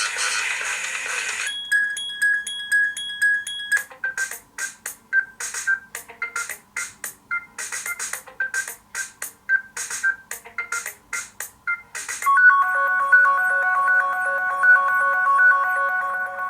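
BQ Aquaris 4 smartphone playing its preset ringtones one after another. First comes the end of one tone, then short repeated electronic pings, then a rhythmic clicking tone with beeps, then a held chiming chord of several notes.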